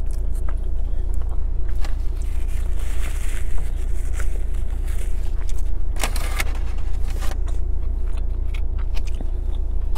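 Steady low rumble of a car's idling engine heard inside the cabin, with a faint steady hum over it. A brief crinkle of the burrito's foil wrapper about six seconds in.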